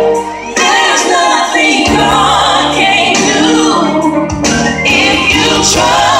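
Loud gospel song with singing voices over a full band accompaniment. The music thins for a moment just after the start, and the bass drops out briefly about four seconds in.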